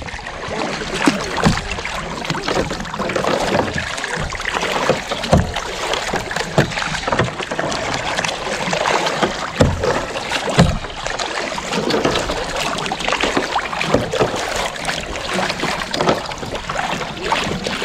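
Kayak paddling: the double-bladed paddle dips and splashes into the water at irregular intervals, over a steady wash of water moving along the hull.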